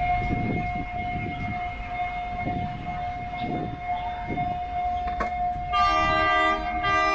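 Narrow-gauge sugarcane train running with low, uneven rumbles under a steady tone, then the locomotive's horn sounds twice about six seconds in, a longer blast followed by a short one.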